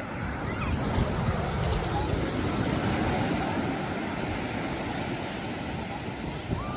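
Ocean surf washing and breaking on the shore, a steady rush, with wind buffeting the microphone.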